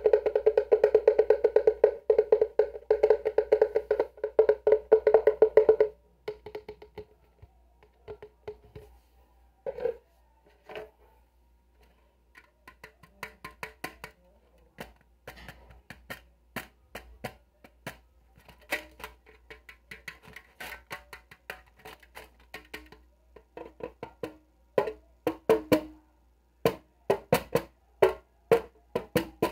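Fast, dense tapping on a hard object with a hollow ring for about six seconds, then scattered single clicks and taps that come more quickly again near the end.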